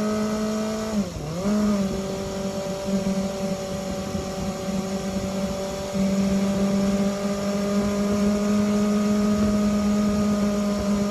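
Suzuki Bandit 250V inline-four engine, swapped into a Suzuki Choinori scooter and fitted with a replacement silencer, running at a steady high pitch. About a second in the pitch dips briefly and comes back up.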